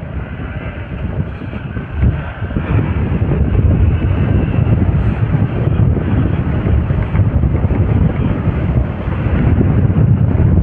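Hero XPulse 200 4V motorcycle on the move, its single-cylinder engine running under heavy wind rush on the microphone, growing a little louder two or three seconds in.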